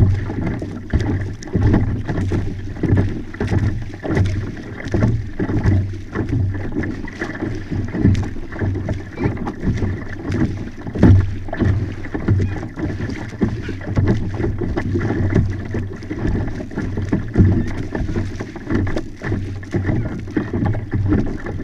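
Water sloshing and slapping against the hull of a Hobie pedal-drive kayak under way, in uneven surges over a constant low rumble.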